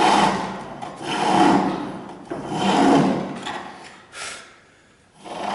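Pole lathe turning a wooden handle: a chisel cutting the spinning wood in regular swells about every one and a half seconds, one with each stroke of the back-and-forth drive. Three cutting strokes, then a short scrape and a brief lull near the end.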